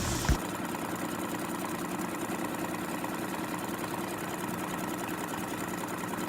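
Sewing machine running steadily at speed, stitching through the quilt layers, with a short knock about a third of a second in.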